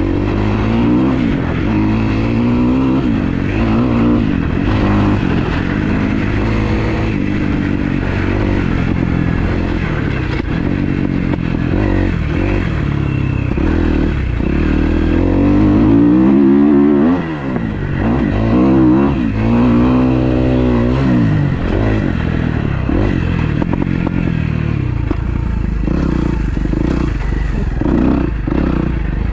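Kawasaki KX250F four-stroke single-cylinder dirt bike engine being ridden hard on a motocross track. It revs up and falls off again and again as the throttle is worked, with a brief throttle-off about halfway through. The engine is freshly rebuilt and not yet broken in.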